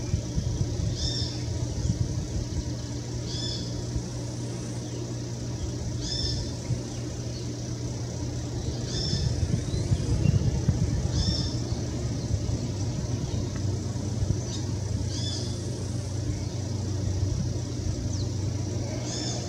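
A steady low mechanical hum, with a bird giving a short, high call every few seconds.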